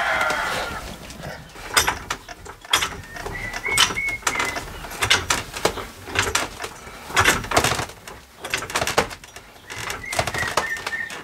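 Chickens clucking and calling, with a string of sharp knocks and clatters scattered throughout.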